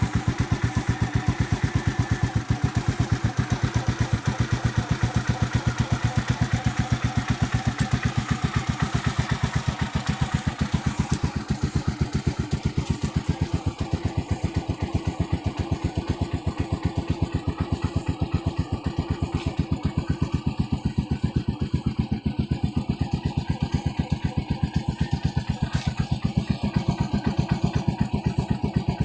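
Rusi TC150 motorcycle engine with its stock exhaust idling steadily, an even pulsing beat that holds its pace throughout.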